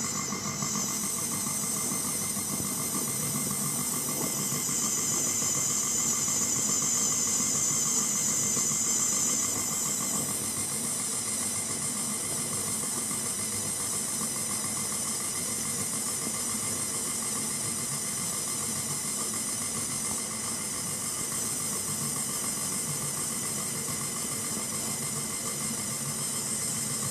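Electric mixer running steadily, beating cake batter until smooth: a continuous motor whine with a high hiss. It grows a little louder from about five to ten seconds in, then settles back.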